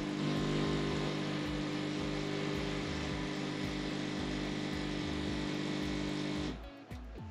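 Siemens EQ500 fully automatic coffee machine running mid-way through a latte macchiato cycle: a steady motor hum with a hiss over it, cutting off about six and a half seconds in.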